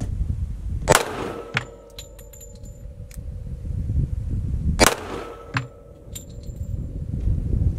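.45 ACP semi-automatic pistol fired twice, about four seconds apart. Each shot leaves a ring hanging for a couple of seconds and is followed by a few light metallic clinks of the ejected brass landing.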